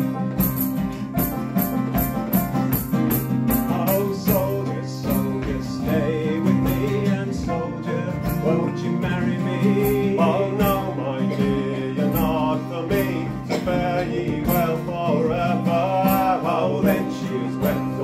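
Live acoustic folk performance of a traditional song: two acoustic guitars strummed in a steady rhythm with a banjo. A man's singing joins about four seconds in.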